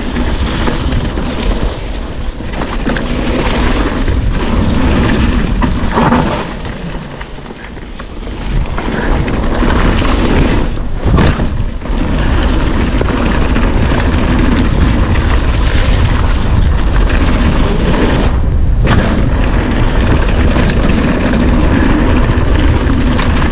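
Wind buffeting a camera microphone and tyres rumbling over the dirt trail as a full-suspension mountain bike descends, easing off briefly about six seconds in, with a sharp knock about eleven seconds in.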